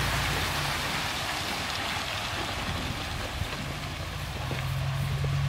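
Diesel engine of a semi truck running as it slowly pulls a loaded flatbed trailer away, over a steady hiss. The engine note grows louder and steadier about four and a half seconds in.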